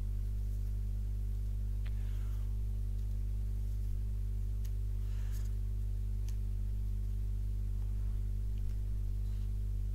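A steady low electrical hum, with a few faint clicks and rustles of tarot cards being slid and laid down on a spread of cards, around two seconds in and again about five to six seconds in.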